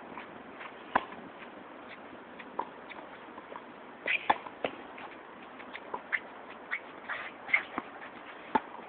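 Tennis rally on a hard court: sharp pops of the racket striking the ball, loudest about a second in, four seconds in and near the end, with fainter hits and ball bounces between and short squeaks of sneakers on the court.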